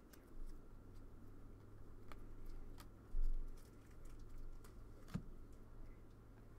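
Glossy trading cards being handled and flipped through, giving a few quiet light clicks and taps. A dull low bump comes a little after three seconds, and a faint steady low hum runs underneath.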